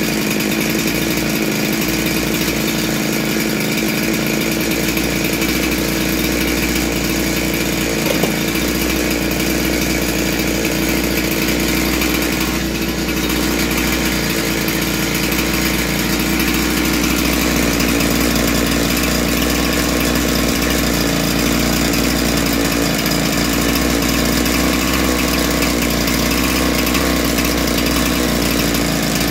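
Husqvarna 372XP chainsaw's single-cylinder two-stroke engine running steadily at idle.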